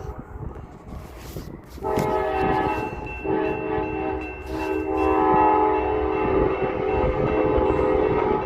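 Diesel freight locomotive's air horn sounding a chord of several notes. It comes in about two seconds in and blows with two short breaks to the end, over the rumble of a train passing at speed.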